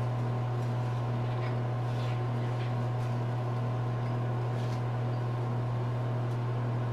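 A steady low hum with fainter even tones above it, unchanging throughout, and a few faint light ticks.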